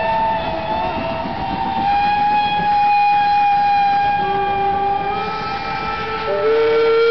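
Steam locomotive whistles blowing long, overlapping blasts at different pitches as several steam engines pass in a line, over the rumble of the moving engines. A higher whistle holds through the middle, and lower, louder whistles join about four seconds in and again near the end.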